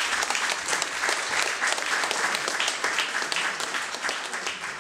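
Audience applauding, many hands clapping, easing off a little near the end.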